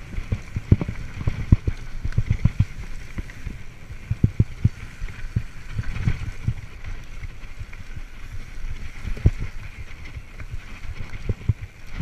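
Mountain bike rattling over a rough dirt singletrack at speed, with frequent irregular knocks and thuds from the wheels, frame and drivetrain over a steady rush of wind on the microphone.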